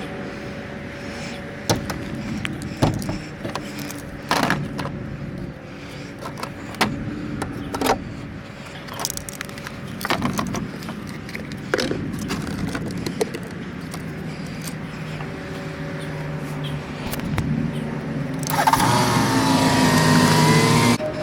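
A car engine running with a steady hum, under repeated clicks and knocks of things being handled. About 18 seconds in, a louder rushing noise sets in and the engine hum grows stronger.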